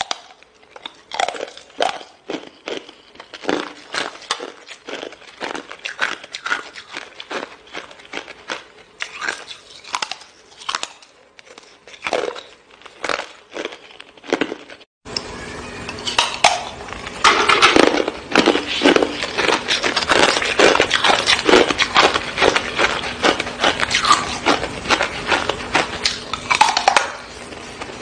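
Hard ice bars being bitten and crunched in the mouth: a run of separate sharp crunches, then, after an abrupt cut about halfway, denser and louder crunching over a low steady hum.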